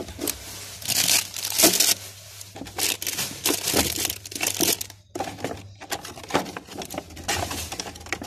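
Clear plastic bags crinkling and rustling in irregular bursts as bundles of plastic headbands inside them are handled.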